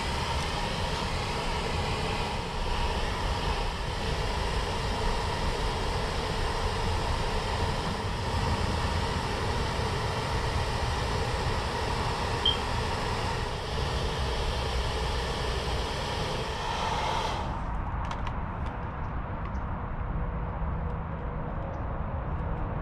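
Hair dryer blowing steadily with a faint motor whine, switched off suddenly about three quarters of the way through; a low rumble carries on afterwards.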